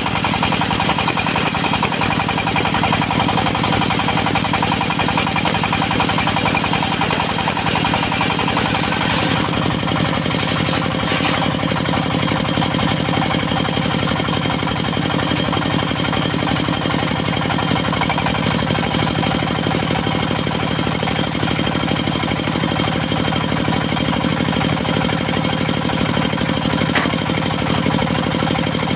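Diesel engine of a portable circular sawmill running steadily under a constant load, a fast even clatter with a steady hum.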